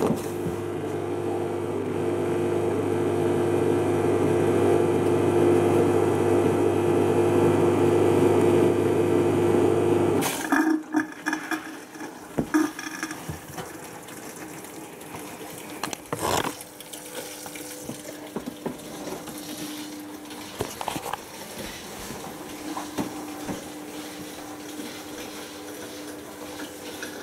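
Hotpoint Aquarius+ FDW70 dishwasher on a test fill: a loud steady hum with water rushing in, which cuts off suddenly about ten seconds in. After that, with a few sharp knocks, the water runs in only faintly: the supply pressure is low.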